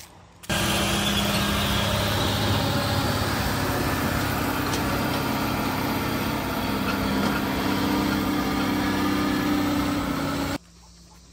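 Heavy dump truck's diesel engine running steadily as it hauls an excavator on a lowboy trailer. The sound starts suddenly about half a second in and stops abruptly near the end.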